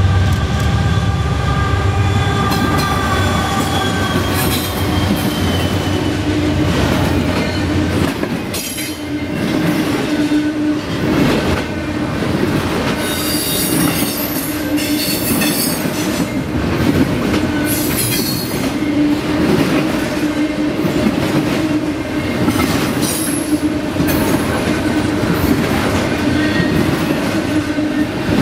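A Norfolk Southern double-stack intermodal freight train passing close by. The diesel locomotives' low engine rumble fades out in the first several seconds. Then the loaded well cars roll past with steady wheel noise, clacking over rail joints and high-pitched wheel squeal.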